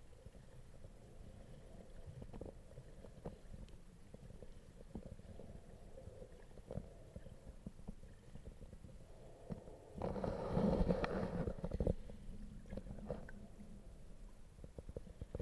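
Underwater sound picked up by a camera in its housing while snorkelling: a low rumble of moving water with scattered faint clicks, and a louder rushing noise for about two seconds near the middle.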